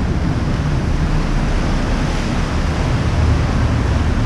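Steady drone of a tour boat's engine under way, mixed with wind on the microphone and the rush of water.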